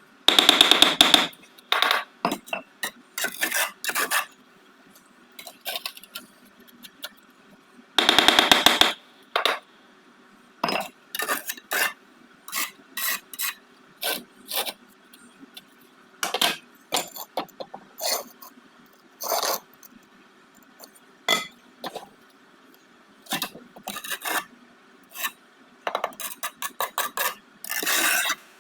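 Bricklaying: a trowel scraping and tapping on brick and mortar, a run of short scrapes and clinks. Two longer, louder rasping scrapes come right at the start and about eight seconds in.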